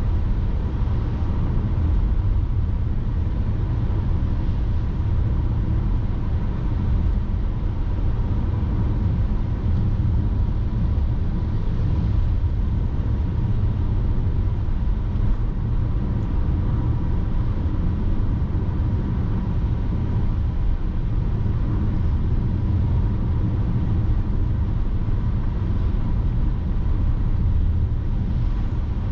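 Steady road and engine rumble of a moving car, picked up by a dashcam, with a faint steady tone above it.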